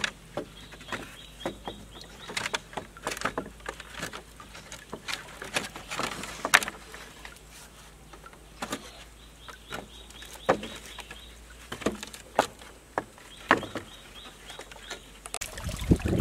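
Hollow knocks and clacks of green bamboo poles striking one another as they are handled and fitted into a frame, coming irregularly, one or a few at a time. Near the end a steady rush of running water comes in.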